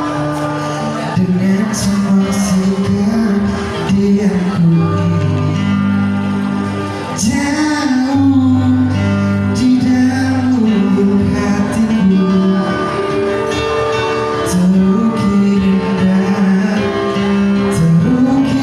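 A man singing a slow song over instrumental accompaniment, holding long, wavering notes.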